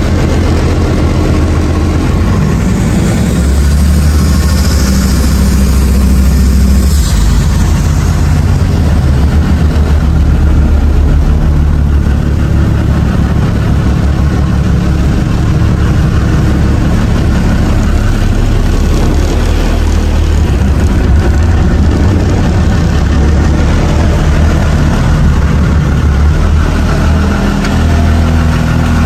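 Engine of a homemade river boat running steadily under way, a loud low drone that shifts slightly in pitch a few times.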